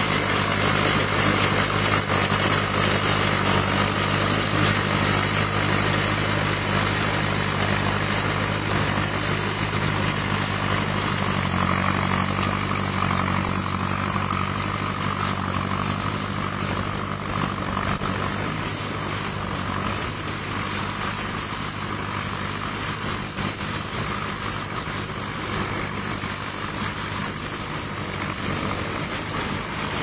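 Zetor Crystal 8011 tractor's diesel engine running steadily under load while pulling a plough, fading gradually as the tractor draws away.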